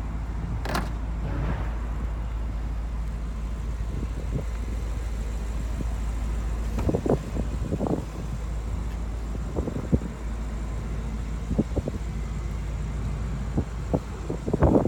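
A car running steadily with a low rumble, with a sharp click about a second in and a few short knocks later, clustering near the end.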